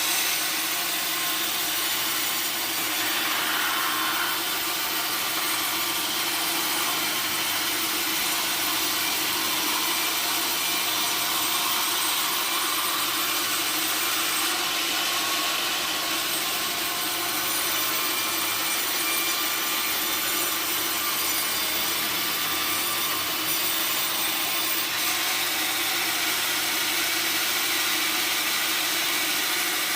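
Sawmill saw cutting steadily through a log, an even, unbroken sawing noise.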